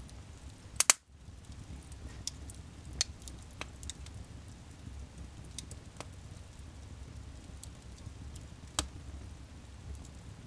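Wood fire in a fireplace crackling, with scattered sharp pops over a low steady rumble. The loudest is a double pop about a second in, with another strong pop near nine seconds.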